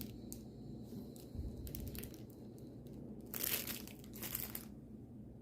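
Packaging crinkling and rustling as items are handled, in a few short bursts with small clicks between.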